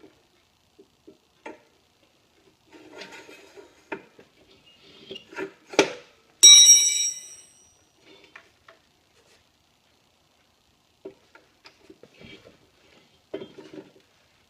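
Adjustable wrench clicking and knocking against steel pipe fittings as a pipe is tightened, with one loud ringing metallic clang about six and a half seconds in that dies away over about a second.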